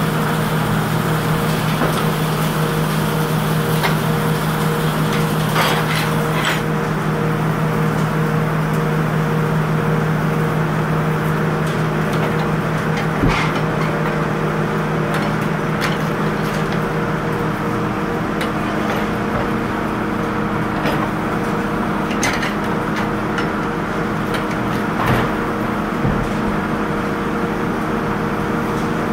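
Sawmill machinery running with a steady hum, broken by a few sharp knocks and clatters of wood and metal as the log is handled on the carriage. The upper hiss fades about seven seconds in.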